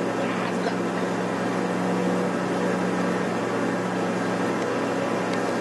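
Steady, low machine hum with an even drone that does not change.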